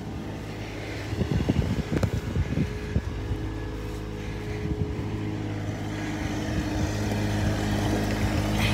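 John Deere compact tractor's engine running steadily, growing louder over the last few seconds as it comes closer, with a run of irregular knocks and crunches in the first few seconds.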